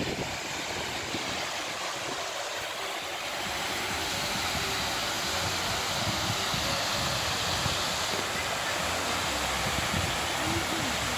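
Water pouring over a low concrete weir: a steady rush that grows a little louder about four seconds in.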